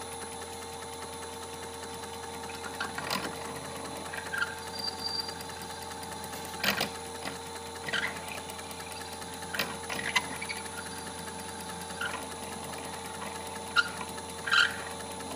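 Small bench lathe motor running with a steady hum, while a metal watch bezel ring is worked against the tool in its chuck, giving about ten short, scattered clicks and scrapes.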